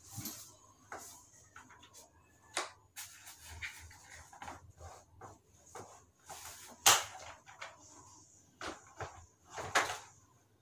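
Hybrid Curve stroller seat unit being unclipped from the frame and clicked back on facing the other way: several sharp clicks and knocks from the seat latches, the loudest about seven seconds in, with handling rustle between.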